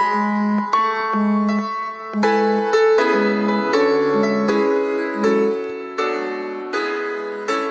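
Alarm ringtone of a Xiaomi Redmi Note 9T 5G phone: a piano melody of evenly paced notes, each struck and fading, over a low note that repeats in steady pulses.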